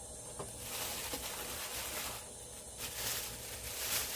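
Packaging being handled during a microphone unboxing: crinkling and rustling in two stretches, with a short lull a little past the middle, over a steady low hum.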